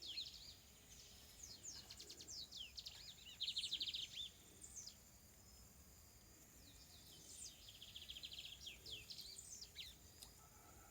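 Birds chirping: short bursts of quick trills and brief downward-sweeping calls, repeated in several clusters, over faint outdoor background hiss.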